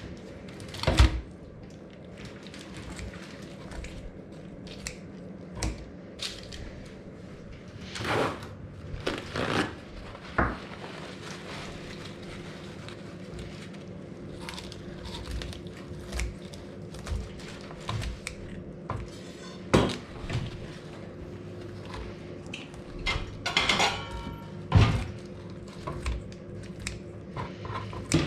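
Scattered clinks, knocks and clatter of dishes, pans and utensils being handled, over a steady low hum.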